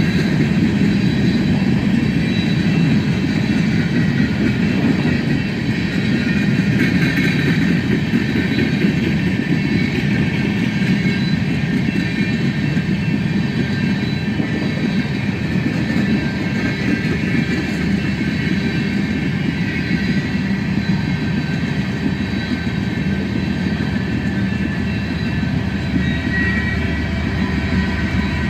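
Coal train's freight cars rolling past in a steady, continuous rumble, with thin high-pitched squealing tones over it.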